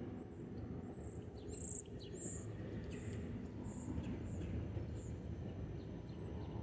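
Low, steady rumble of a SEPTA GE Silverliner IV electric multiple-unit train still far off and approaching, growing slightly louder. Over it, a bird chirps repeatedly in short, high, falling notes.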